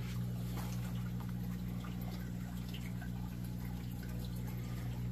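Steady low hum of running aquarium equipment, with faint drips and trickling of water in the tank.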